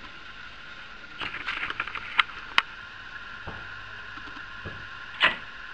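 Light metal clicks of an outboard's gear-shift linkage being worked between neutral and forward: a quick run of small ticks about a second in, two sharp clicks around two seconds in, and a louder clack near the end.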